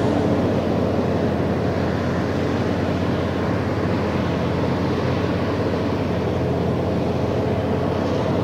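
Claas Jaguar 850 self-propelled forage harvester running steadily under load as it chops standing maize: a constant machine drone.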